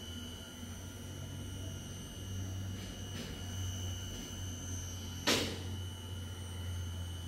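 Sunnen valve guide and seat machine running with a fluted cutter in a valve guide bore of a cast-iron cylinder head, giving a steady low hum with a thin high whine. One sharp metallic clack comes about five seconds in.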